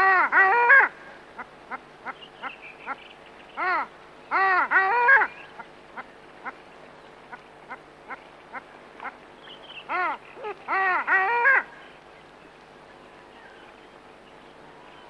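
Long-tailed duck hooting: three bouts of loud calls, each a lone note followed by a quick run of notes that rise and fall in pitch, with faint short ticks between the bouts.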